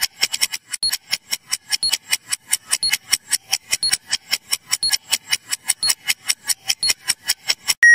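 Quiz countdown timer sound effect ticking fast and evenly, about five ticks a second, as the time to answer runs down. A pitched chime starts right at the end as the timer runs out.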